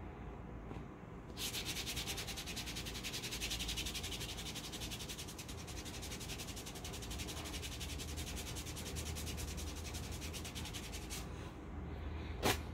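Hand rubbing a paper hair-removal strip briskly over wax on the lower leg: a fast, scratchy rubbing of rapid strokes. A single short, sharp rip near the end as the strip is pulled off the skin.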